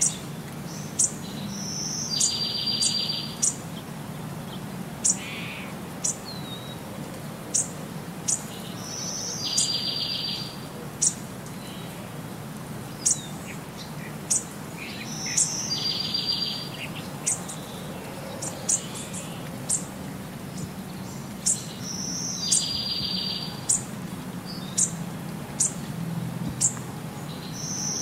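Looped birdsong track: short, sharp, high chirps about once a second, and a buzzy trill that comes back about every six and a half seconds, over a low steady hum.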